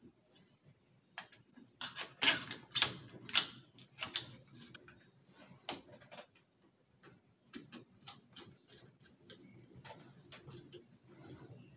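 Irregular clicks and knocks of a pistol grip being fitted and tightened onto an AK-pattern pistol held in a small vise, the loudest cluster about two to three and a half seconds in, then lighter ticks of handling.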